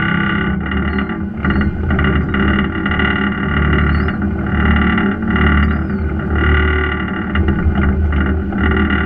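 Boat engine idling steadily, a constant multi-toned hum with no change in speed.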